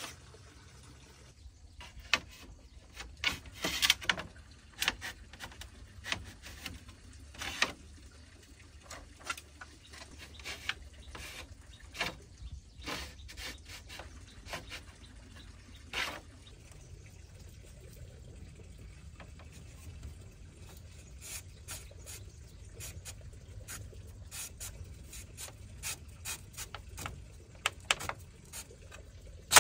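Split bamboo slats rustling, scraping and clicking against each other as they are woven by hand into a bamboo wall frame. The knocks and rubs come irregularly, thickest in the first several seconds and again near the end.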